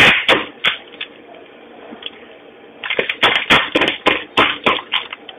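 Crackling and crunching as a film-wrapped block of hard cheese is handled and cut by hand: a few sharp crackles in the first second, then a dense, quick run of them from about three seconds in.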